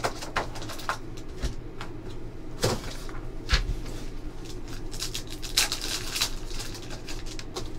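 Foil trading-card pack wrapper crinkling as it is pulled from the box and torn open by hand: a series of sharp crackles and rustles, thickest about five to six seconds in.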